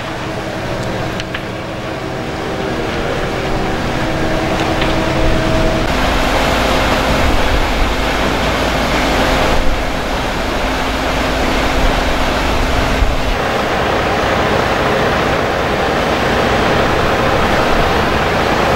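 Fire engines running at a fire scene, their pumps making a steady mechanical drone with a hum in it. About six seconds in, the hum gives way to a louder, broad rushing noise of engines and hose water jets.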